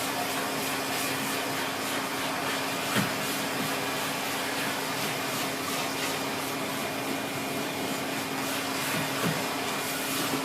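Siemens Z6.0 2500 W bagged cylinder vacuum cleaner running steadily at minimum power with its dusting brush fitted, a steady hum over the airflow noise, with a couple of light knocks.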